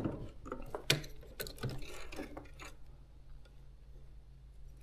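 Scattered light clicks and rustles from hands handling vinyl and electroluminescent wire at a sewing machine, with a faint steady low hum underneath.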